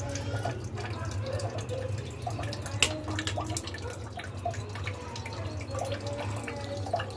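Light clicks and scrapes of a metal fork against a ceramic plate while soaked bread slices are moved about, with one sharper click about three seconds in, over a steady low hum.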